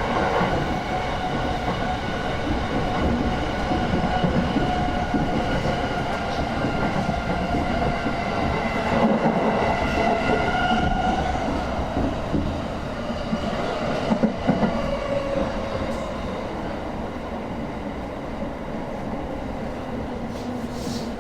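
Inside an electric commuter train car slowing for a station: a steady rumble of wheels on the rails with a whine of several tones that sinks a little in pitch as the train brakes, growing quieter in the second half.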